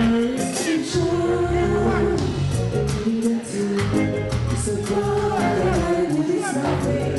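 Live reggae band playing: a heavy, repeating bass line and drums with keyboards, and a voice singing over it.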